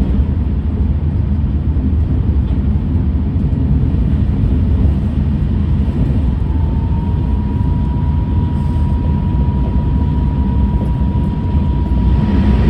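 Cabin running sound of an E6 series Shinkansen at speed: a steady low rumble from wheels, track and bogies. About halfway through a steady high whine from its Toshiba IGBT VVVF traction inverter comes in, rising slightly at first and then holding one pitch.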